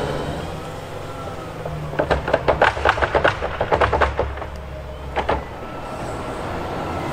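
Wheel loader's diesel engine running at a low, steady speed. About two seconds in comes a rapid series of sharp clattering knocks lasting about two seconds, and one more knock a second later.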